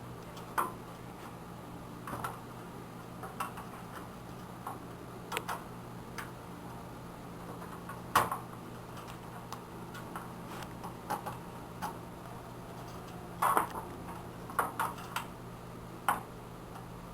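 Irregular light clicks and knocks of wires and connectors, the IDE ribbon cable among them, being unplugged and handled inside a desktop computer case, over a steady low hum.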